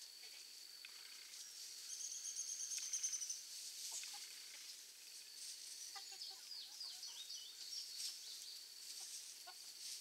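Chickens foraging in grass, with a few soft low clucks and faint scratching and pecking clicks. Over them sit a steady high-pitched drone, a high pulsed trill about two seconds in that is the loudest sound, and a run of quick falling chirps around six to seven seconds.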